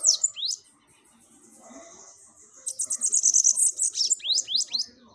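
Bananaquit singing: a very high, rapid, buzzy trill that breaks into a run of quick downward-sweeping notes. The end of one song opens the sound, and a fuller song starts about two and a half seconds in.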